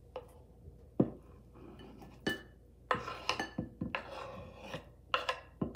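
Knife scraping chopped tomato and onion off a wooden cutting board into a glass bowl: rubbing strokes broken by several sharp knocks and clinks, the loudest about a second in.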